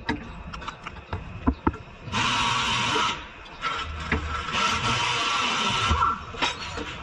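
Metal clicks and knocks from the front lower control arm being worked into place under the car, then two stretches of a steady, loud hissing whir from a workshop tool, one about a second long and one about two and a half seconds long.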